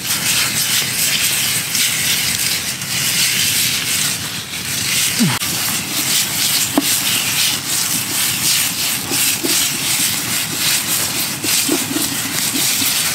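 Sausages and chopped meat sizzling in a metal frying pan over a wood campfire: a steady hiss with a few small pops from the fire.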